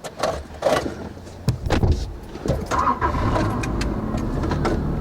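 A few clicks and knocks, then a vehicle engine starting about three seconds in and settling into a steady idle.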